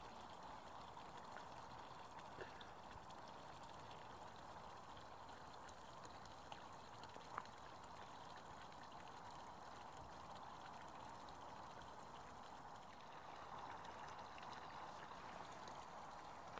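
Near silence: faint steady background hiss with a few small clicks.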